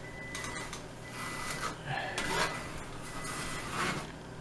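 Drywall knife scraping joint compound across a plaster wall in several strokes, spreading and smoothing the first coat of mud over gouges.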